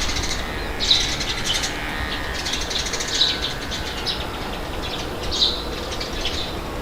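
Small birds chirping in several short bouts of rapid, high chirps, over a steady low rumble of wind.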